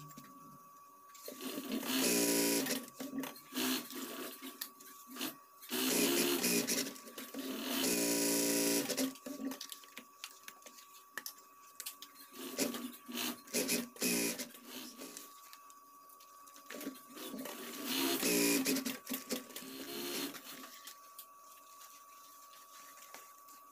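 Industrial sewing machine stitching bag fabric in short runs of one to three seconds, its motor whine rising with each run and stopping between them while the work is repositioned. A faint steady high hum runs underneath.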